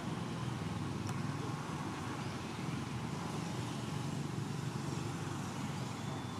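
Steady low background rumble without any clear event in it.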